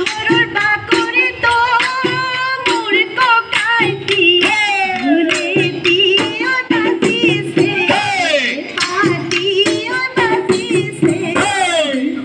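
Assamese Bihu folk music: a singing voice with gliding, ornamented notes over a quick, steady drum beat.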